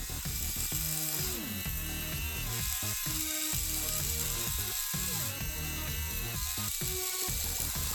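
Small toy-car gear motors whirring and buzzing as the Halocode-controlled RC car drives, stopping and starting with a few brief gaps, over background music.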